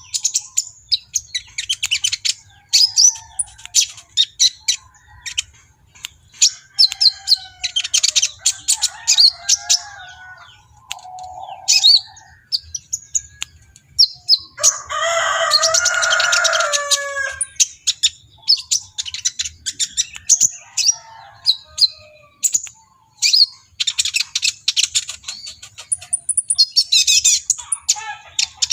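Sunbird singing a fast run of high, sharp chirps and twitters, with a louder, fuller outburst of about two and a half seconds near the middle.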